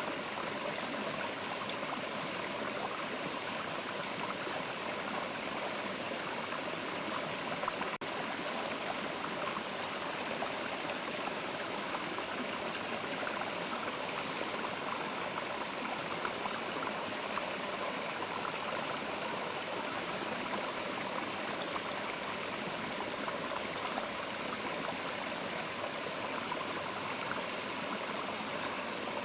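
Mountain river flowing, a steady, even rush of water.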